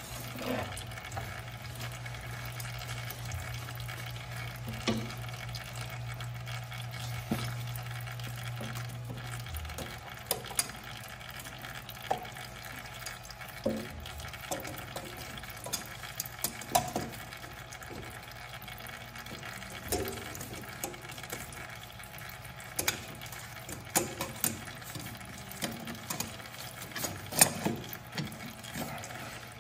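Hydraulic oil trickling and dripping from the loosened hydraulic oil filter of a 1971 Bobcat M600, with scattered light clicks and taps of metal. A low steady hum stops about ten seconds in.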